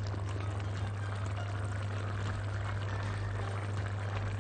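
Pasta in tomato sauce simmering in a pan, with many small irregular bubbling pops over a steady low hum.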